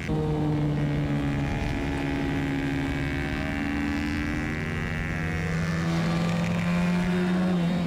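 Racing minibike's engine running hard on the throttle through a corner, heard from onboard the bike, its note steady and firming up in the second half as the bike gathers speed.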